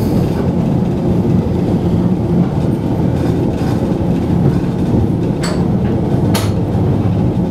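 Heritage electric tram running along its track, heard on board: a steady low noise of wheels on rails, with two sharp clicks about a second apart near the end.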